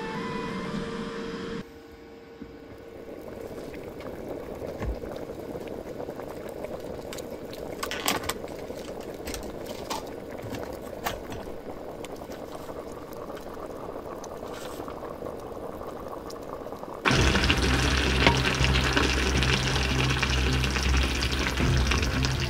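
Electric hot pot of pork and napa cabbage simmering: a steady bubbling hiss with a few small clicks. Background music fades out just after the start and comes back louder about three-quarters of the way through.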